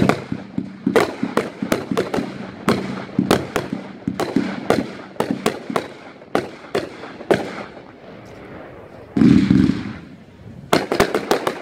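Winda "Pyro Heaven" 500-gram firework cake firing: a rapid string of sharp shots and crackling breaks for about seven seconds, then a pause. A louder, deeper burst comes about nine seconds in, and a quick cluster of cracks follows near the end.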